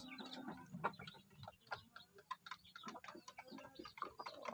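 Faint, irregular clicking and tapping, several clicks a second, with a few soft low sounds between them.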